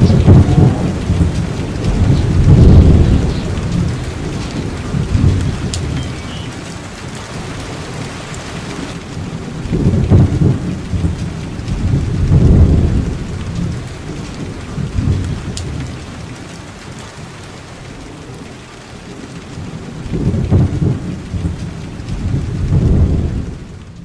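Steady rain with low rolls of thunder that swell and fade several times, coming in pairs about every ten seconds.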